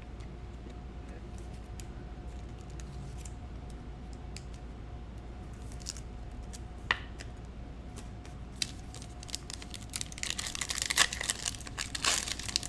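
A few faint scattered clicks, then from about ten seconds in, the cellophane wrapper of a Prizm football card cello pack crinkling and tearing as it is ripped open by hand.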